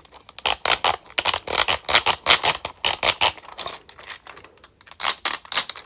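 Rapid plastic clicking from the second-loudest detent wheel of a large 3D-printed 12-in-1 fidget as it is turned, several clicks a second, with a short pause about four seconds in before the clicking resumes.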